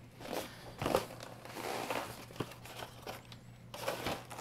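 Packaging crinkling and rustling in irregular bursts as a large vibration plate is pulled out of its box, with a brief lull about three seconds in.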